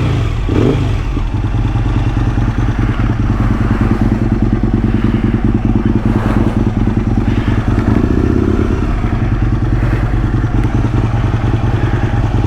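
Aprilia RSV1000's 60-degree V-twin engine idling steadily.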